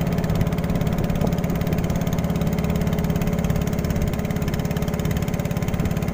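Motor of a small wooden boat running steadily under way, an even engine hum with rapid regular firing pulses.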